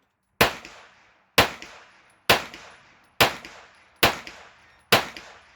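Six gunshots fired in quick, even succession, about one a second, each a sharp report followed by a fading echo.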